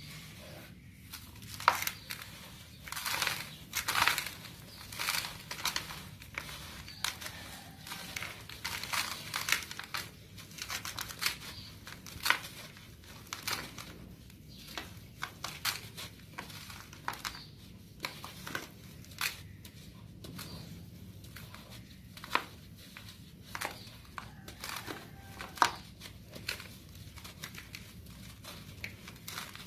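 Close-up crinkling and crackling with irregular crisp rustles and sharp clicks. They come thick for the first dozen seconds, then thin out to scattered clicks.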